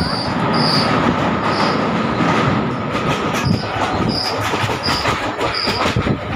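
Passenger train running at speed over a steel truss bridge, heard from inside the coach at an open barred window: a dense rumble and clatter of wheels on rail, with a thin steady whine over the first half and short high squeaks repeating less than a second apart.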